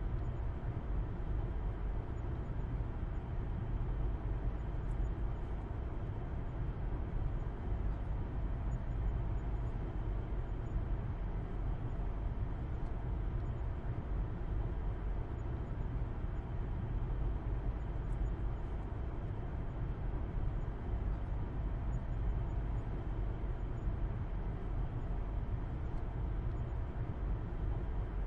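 Steady low rumble of a car on the move, as heard from inside: engine hum and tyre and road noise at an even cruising speed, with no gear changes or sudden events.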